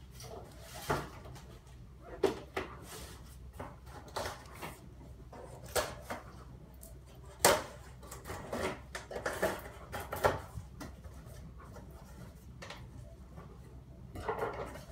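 Cardboard shipping box being handled and cut open on a wooden table: irregular knocks, scrapes and rustles as the packing tape is slit and the flaps are pulled open, with the sharpest knock about seven and a half seconds in.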